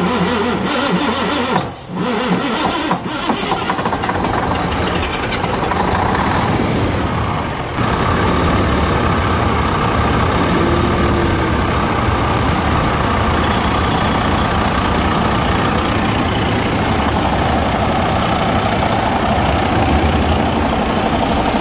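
Rebuilt diesel engine of a Freightliner Columbia semi-truck being started for its first run after a full rebuild. It cranks and catches, and from about eight seconds in it runs steadily.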